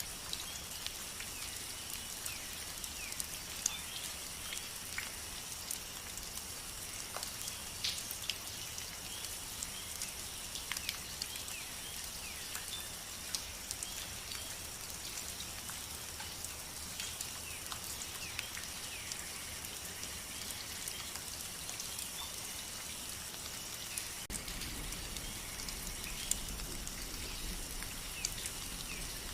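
Rain falling, with many scattered drips and taps over a steady high background hiss; near the end a low rumble comes in underneath.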